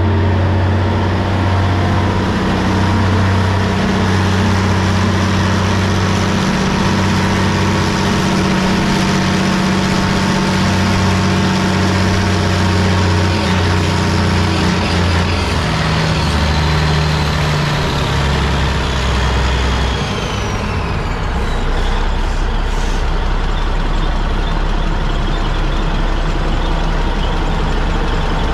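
Big Bud farm tractor's Caterpillar diesel engine running loud and hard under load while pulling the sled, its pitch stepping down a couple of times. About twenty seconds in the engine note drops away with a falling whine, leaving a steady low rumble.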